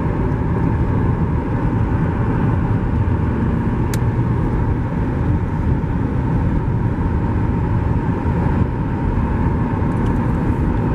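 Steady low rumbling noise at an even level, with a single sharp click about four seconds in.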